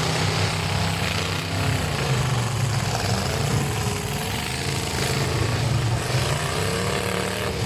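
Engines of demolition derby trucks running, a steady low drone.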